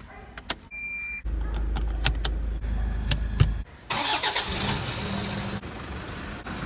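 Ignition key clicking in the lock and a short beep, then a Toyota Fortuner's engine cranks, starts about a second in and runs at a steady idle. Near the end the idling engine is heard up close at the tailpipe, louder.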